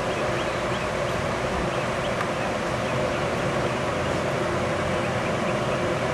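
Streamlined stainless-steel passenger lounge car rolling slowly past on the rails: a steady noise of wheels and running gear, with faint light ticks over it.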